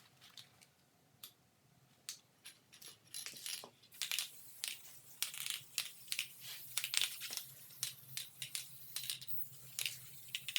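Paper crinkling and rustling in bursts with scattered light clicks, sparse at first and busier from about four seconds in: sandpaper and its backing being handled.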